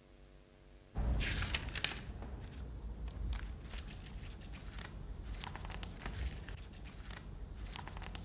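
Paper rustling and crinkling in a string of short crackles as the pages of a hardbound book are bent and flipped through; it starts suddenly about a second in, over a low steady hum.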